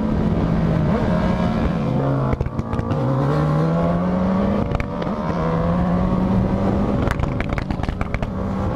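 Motorcycle engine pulling hard through the gears. Its pitch climbs, then falls at each upshift about two and a half and five seconds in. A run of sharp crackles comes near the end.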